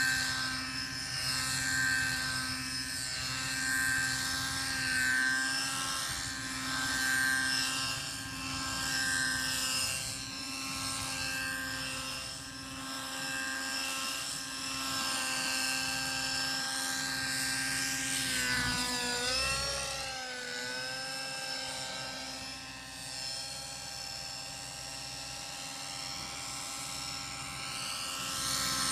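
Align T-Rex 600 nitro RC helicopter in flight: its two-stroke glow engine and rotors make a steady high-pitched whine that swells and fades every couple of seconds as it moves about. About two-thirds of the way through, the pitch dips and comes back up.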